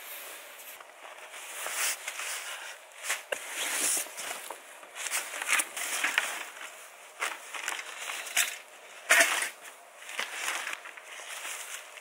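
Nylon backpacks and stuff sacks rustling as they are handled, with footsteps crunching in snow, in irregular bursts; the loudest comes about nine seconds in.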